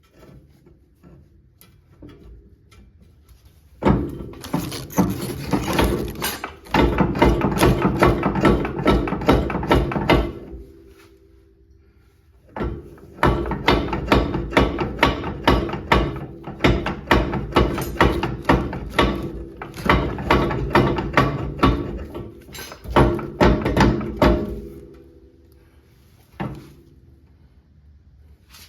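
Quick succession of sharp metallic knocks with a ringing tone, in two long runs separated by a pause of about two seconds.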